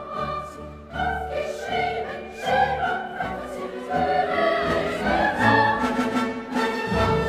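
Classical orchestral music with a choir singing.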